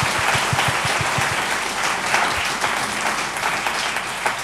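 Large seated audience applauding steadily, thinning a little near the end.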